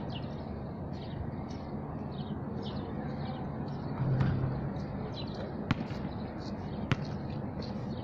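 Basketball shooting practice: a low thud about four seconds in as the shot reaches the hoop, then the basketball bouncing sharply on the hard court twice. Birds chirp over a steady background hum throughout.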